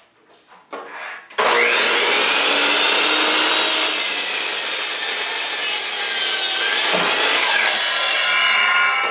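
Porter-Cable compound miter saw starting up about a second and a half in, its motor whine rising quickly, then cutting through a pine 2x4. Near the end the trigger is let go and the blade begins to spin down.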